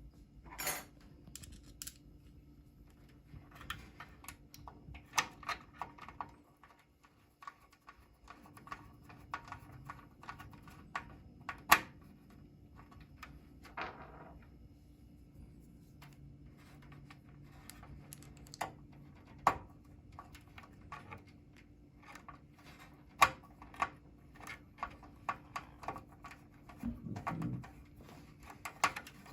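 Scattered irregular clicks and light taps of hard small objects being handled, some sharper and louder than others, over a low steady hum.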